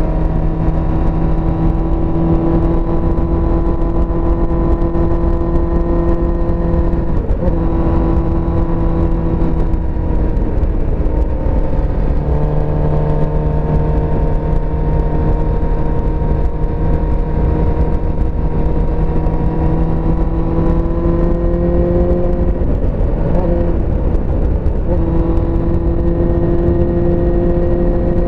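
1984 Suzuki GSX-R400 (GK71B) inline-four engine running under way at a steady cruise, with wind rush on the microphone. The engine note breaks and shifts briefly about 7, 11 and 24 seconds in, and climbs slowly in pitch in between.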